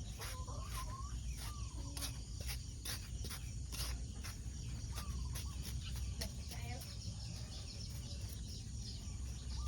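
Insects chirping in short, regular pulses a few times a second, with faint wavering animal calls and a low steady rumble underneath.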